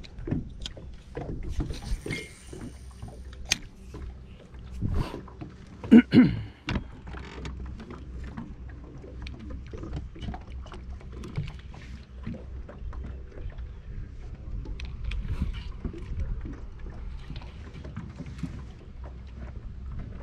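Small aluminium fishing boat at rest on the water: a steady low rumble with scattered knocks and clicks, and one louder knock about six seconds in.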